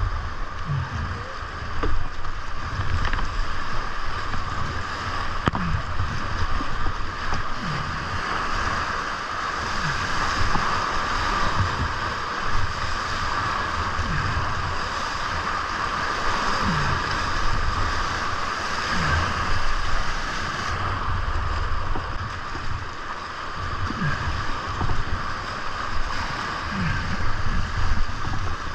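Whitewater rapids of a creek in high spring flow (about 1,600 cfs) rushing steadily around a kayak running through them, with irregular louder splashes as waves break over the bow and a low buffeting on the microphone.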